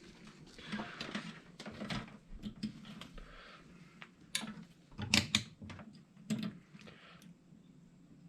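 Scattered light clicks and rustling from hands working on car wiring, with a cluster of sharper clicks about five seconds in.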